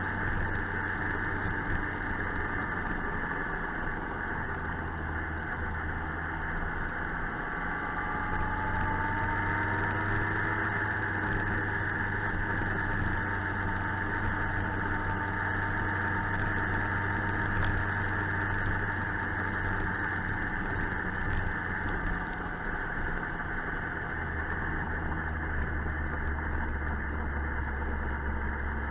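Suzuki GSX-R 1000's inline-four engine running on the move, with steady wind and road noise; the engine note rises about a third of the way through and shifts again near the end.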